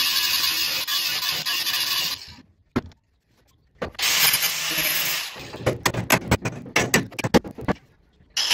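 Angle grinder with a cutoff wheel cutting sheet metal, in several bursts of steady high grinding noise broken by short pauses. In the middle comes a run of sharp, uneven clacks, the loudest sounds here.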